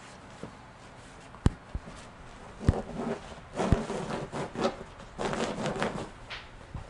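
German shorthaired pointer puppy digging and pawing at a fabric dog bed: scratchy rubbing in uneven bursts, with a few sharp knocks, the first about a second and a half in.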